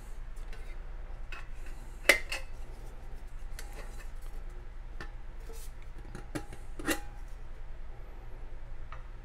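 Titanium kettle lid clinking and scraping against the pot as it is lifted off and handled: a series of light metal clicks, with a sharp clank about two seconds in and a short ringing clink near seven seconds.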